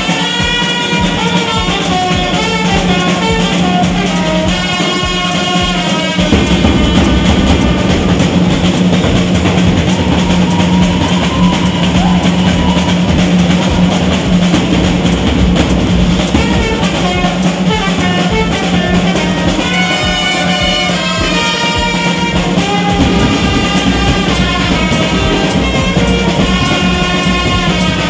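Brass band playing: trumpets and trombones over marching drums with a bass drum, with a steady beat. The sound gets fuller about six seconds in.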